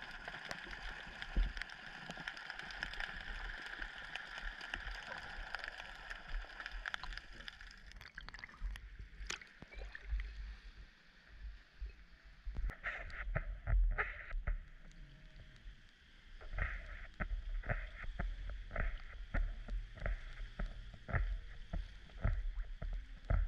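Steady underwater noise for the first several seconds. Then, with the camera bobbing at the sea surface, water sloshing and splashing against it in many short sharp splashes and low thumps.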